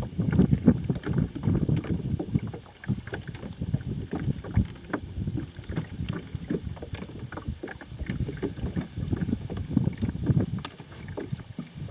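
Wind buffeting the microphone over water lapping against a small boat, an uneven gusty rumble with many small knocks.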